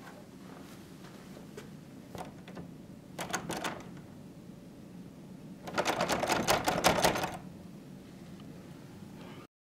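A metal door lever handle worked by hand, its latch rattling and clicking in quick bursts: a short burst about three seconds in, then a longer, louder one about six seconds in.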